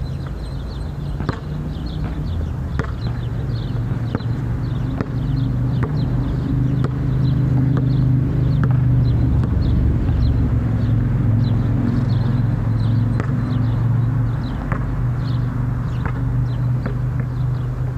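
Low, steady engine rumble that swells louder for several seconds in the middle and then eases back. A basketball's occasional sharp bounces and a run of short, high chirps sound over it.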